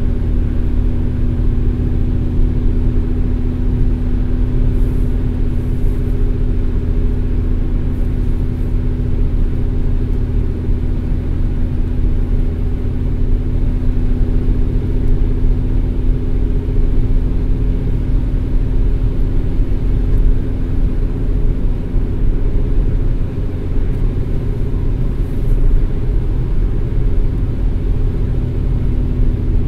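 Car driving along: a steady low rumble of road and engine noise with a constant hum running under it.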